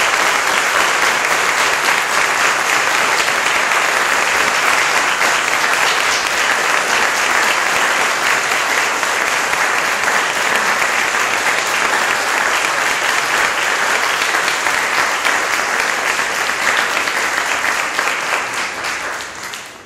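Audience applauding, steady dense clapping that dies away near the end.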